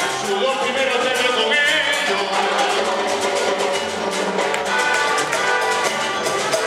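Live Cuban son band playing, with a man singing over the band and a steady percussion beat.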